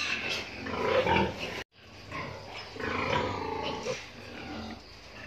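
Pigs grunting: a sow with her piglets, in short repeated calls. The sound cuts out briefly about a second and a half in.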